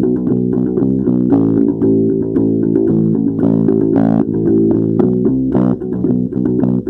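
Music played on plucked strings, bass guitar and guitar, with many short plucked notes over a steady low part.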